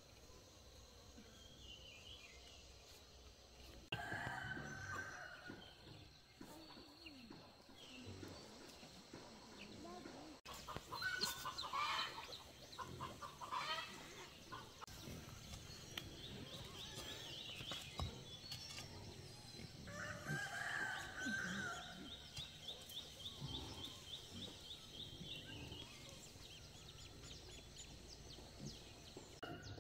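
Farmyard chickens: a rooster crows about four seconds in and again about twenty seconds in, with clucking and sharper calls between. A fast, high ticking trill runs behind them in the second half.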